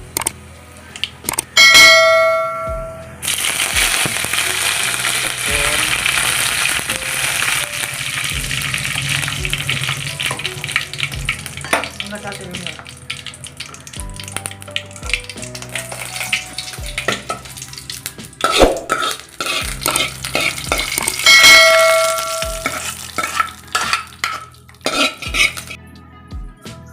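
Food frying in hot oil in a pan, sizzling and crackling, with a spoon stirring and scraping against the pan. A ringing metal clang about two seconds in and again about twenty-one seconds in.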